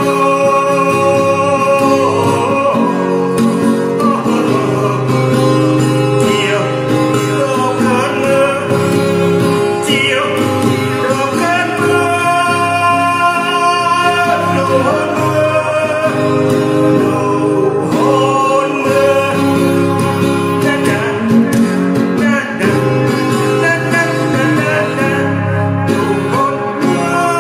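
Music: a slow song with guitar accompaniment and a man singing.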